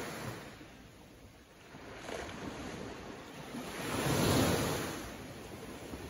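Small sea waves breaking on a sandy beach and washing up the shore, the hiss swelling and fading with each wave; the biggest wave comes about four seconds in.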